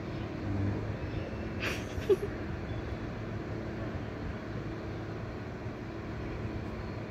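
Steady low hum of distant road traffic. A brief sharp sound comes about two seconds in.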